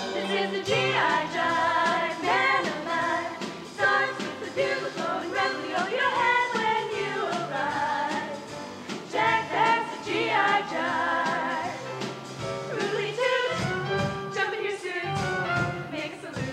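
Female show choir voices singing an upbeat number, a soloist among them, with band accompaniment and a drum kit keeping the beat.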